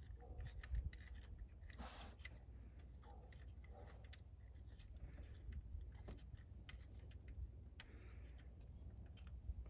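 Faint, scattered light metallic clicks and clinks as small steel tool pieces are handled and fitted into a head-bolt hole in the engine block, over a low steady rumble.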